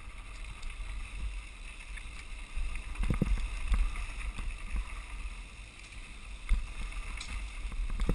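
Mountain bike rolling over a dirt trail, heard from a camera on the following bike: a steady low wind rumble on the microphone with knocks and rattles over bumps, the sharpest about three seconds in and again at about six and a half seconds.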